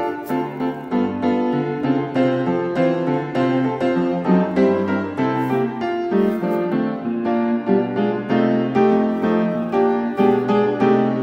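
Background music: a piano playing a steady run of notes.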